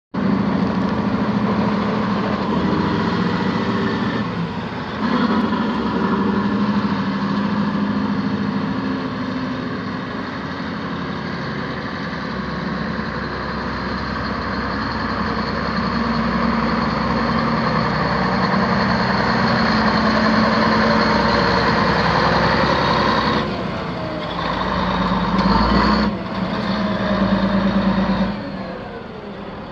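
Komatsu HM400-2 haul truck's 15.2 L six-cylinder diesel engine running steadily, with a few abrupt shifts in level and pitch along the way.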